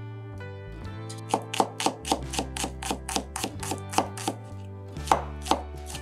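Chef's knife mincing garlic on a cutting board: a run of quick, even taps, about five a second, starting about a second in and stopping just before the end.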